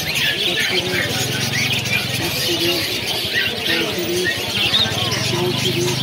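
A dense chorus of caged pet birds, cockatiels among them, chirping and whistling over one another in many short, overlapping calls.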